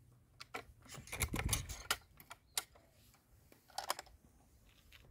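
Hatsan Torpedo 155 Vortex air rifle being handled to cock and reload between shots. There is a quick run of metallic clicks and clatter about a second in, a couple of single clicks after, and another short cluster of clicks near four seconds.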